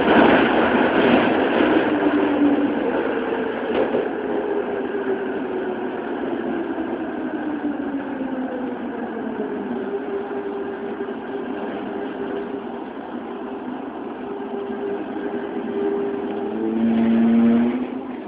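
Toei 12-000 series subway car's Hitachi GTO-thyristor VVVF inverter whining under braking, with rail running noise: its tones fall in pitch, hold steady, then drop to a lower, louder tone. The whine cuts off near the end as the train comes to a stop at the station.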